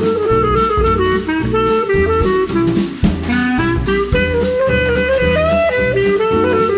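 Background music with a steady beat, a bass line and a melody.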